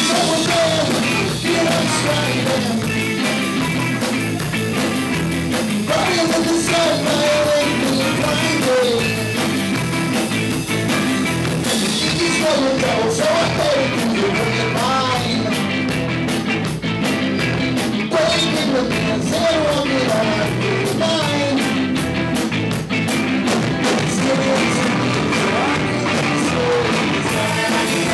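Live rock band playing: a singer over electric guitar and drums. About halfway through, the cymbals take up a fast, steady pulse.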